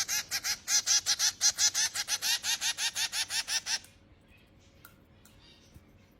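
Finch chick giving rapid, high-pitched begging calls, about six a second, the sound of a hungry baby finch being hand-fed; the calls stop abruptly about four seconds in.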